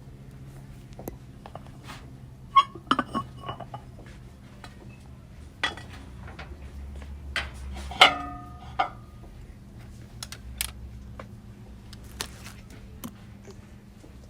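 Hard objects clinking and knocking together, like dishes or metal ware being handled. The loudest knocks come about two and a half seconds in and about eight seconds in, and the second rings briefly. A steady low hum runs underneath.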